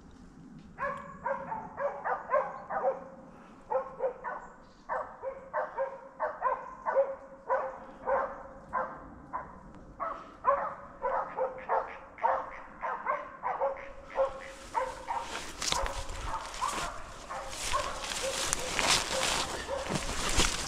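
Pack of hunting dogs baying at a bear some way off, many short barks in quick succession without pause. About two-thirds of the way through, close rustling of brush and dry leaves comes in over the barking as someone pushes through the undergrowth.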